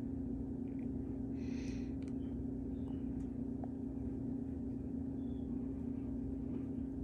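Steady low hum of room tone, with a brief soft hiss about one and a half seconds in.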